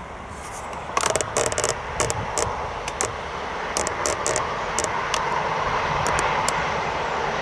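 Pan-and-tilt tripod head creaking in a string of sharp clicks as it is swung round, loudest about a second in. Underneath, the noise of an approaching train grows steadily louder.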